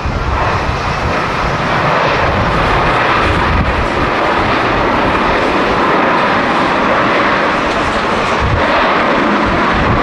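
Boeing 787's GEnx jet engines running in reverse thrust during the landing roll, a loud steady rush. Wind buffets the microphone with low gusty rumbling underneath.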